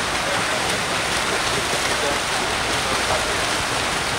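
Many freestyle swimmers kicking and stroking through the water, a steady rushing splash with no breaks.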